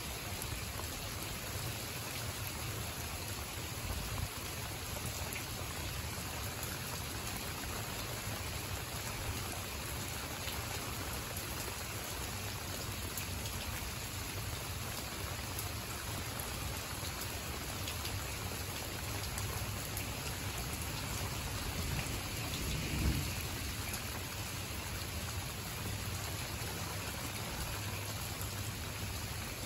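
Steady rain falling on shrub leaves and a mulched garden bed: an even hiss with a low rumble underneath. A single short low thump about 23 seconds in.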